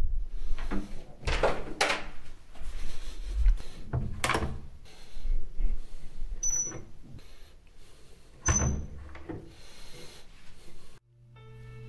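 A door being unlocked and opened, then a cabinet being opened: several sharp knocks and clunks, with two short high squeaks. Music starts near the end with held notes.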